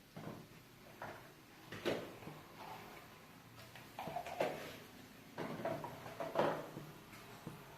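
Irregular knocks and scrapes of kitchen utensils and cookware being handled, the loudest about two, four and a half, and six and a half seconds in.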